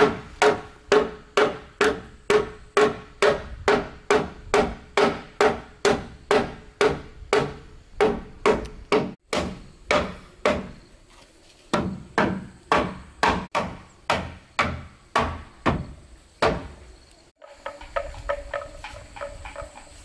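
Steady hammering, about two ringing blows a second, with a short pause near the middle, stopping a few seconds before the end. Then chickens clucking.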